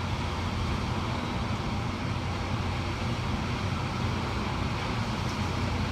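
Hurricane-force wind blowing steadily, a constant rushing noise with no distinct gusts, and a low steady hum underneath.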